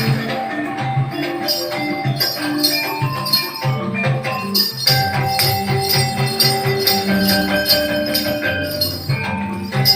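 Javanese gamelan music accompanying the Remo dance: a drum beats a quick, busy rhythm under ringing metallophone notes, with a bright jingling on top.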